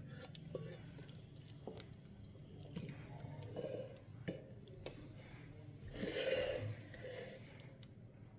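A spatula stirring boiled kidney beans into a thick masala gravy in a metal pan: quiet wet scraping with a few light taps against the pan, and a louder soft rush of noise about six seconds in.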